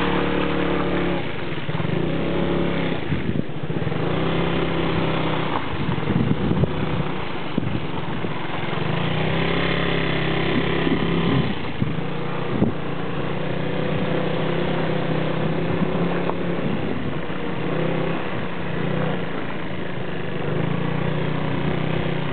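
Motorcycle engine running under way on a rough, puddled dirt road. Its pitch steps up and down every few seconds as the speed changes, over a rough rumble of road and wind noise.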